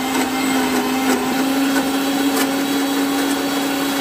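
Electric mixer-grinder motor running steadily, blending toasted sesame seeds with oil and salt into tahini paste; its hum creeps slightly higher in pitch.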